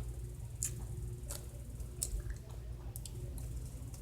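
Soft wet squishing with several short sharp clicks, about one every half second to second, over a low steady hum.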